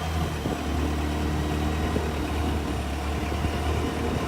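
Tour boat's engine running steadily with a constant low drone as the boat travels along the canal.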